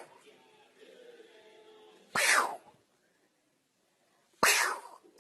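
Two sharp, short sneezes about two seconds apart.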